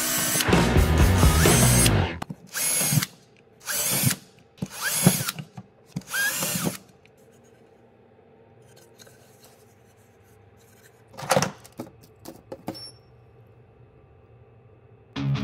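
Cordless drill running: one longer run, then four short trigger bursts, each spinning up with a rising whine. A few light knocks come later.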